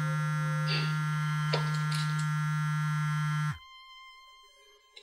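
Mobile phone buzzing for an incoming call: a loud, steady low buzz with a few light clicks over it, cutting off abruptly about three and a half seconds in.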